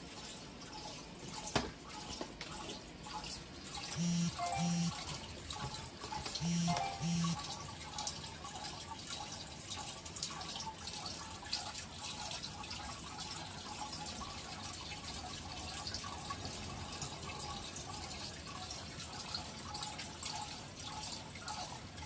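Aquarium filter water trickling and dripping steadily, full of small ticks. One sharp click comes about one and a half seconds in, and a pair of short electronic beeps sounds twice, about four and six and a half seconds in.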